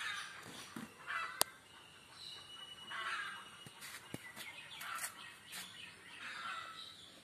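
Birds calling in the background, with a single sharp click about a second and a half in.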